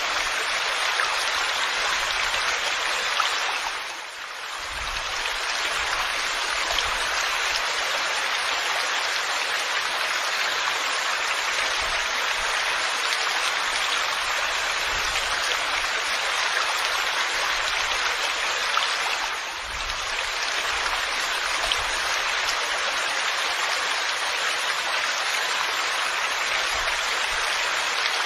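Heavy rain falling steadily, an even hiss, with two short dips in level, about four seconds in and again near twenty seconds.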